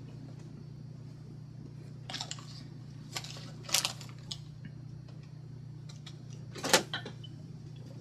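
Objects being handled on a table: a few scattered rustles and light knocks, the loudest about two thirds of the way in, over a steady low hum.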